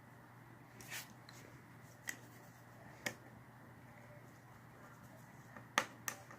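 Faint, scattered small clicks and taps, about five, from a small screwdriver and phone parts being handled during a smartphone teardown.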